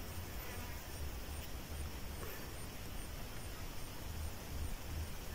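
Quiet open-air ambience: wind rumbling on the microphone in gusts, with a faint high chirp repeating steadily a few times a second, typical of an insect.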